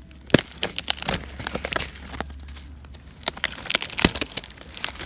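Dry teak leaf litter crackling and rustling in irregular sharp snaps as it is disturbed close to the microphone.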